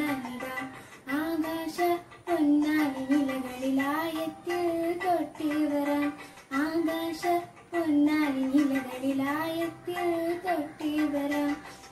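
A girl singing a Malayalam song solo, in phrases of a few seconds with held notes that waver and slide in pitch.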